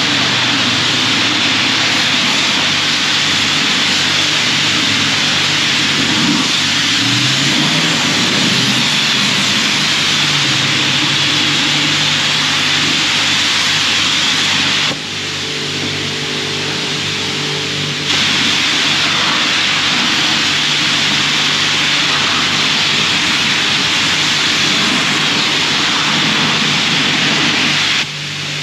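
High-pressure rinse spray from a self-serve car wash wand hitting a pickup's body panels: a steady loud hiss with a low hum under it. The spray drops away for about three seconds around the middle and again briefly near the end.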